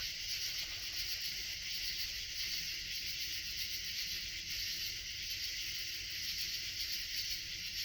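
Steady, high-pitched chorus of night insects in woodland, a constant hiss with no howl heard.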